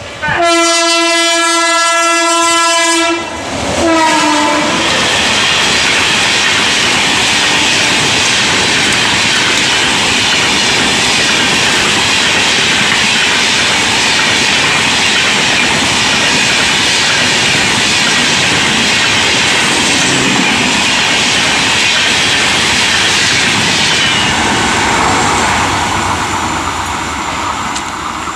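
WAP7 electric locomotive's horn sounds one long blast of about three seconds, then a short second blast. Then comes the loud, steady rush and clatter of an express train's coaches passing at about 95 km/h, fading away over the last few seconds.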